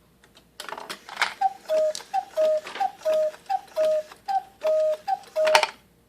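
Cuckoo clock calling: about six falling two-note "cuck-oo" calls in a row, with mechanical clicking between them. Faint ticking before and after.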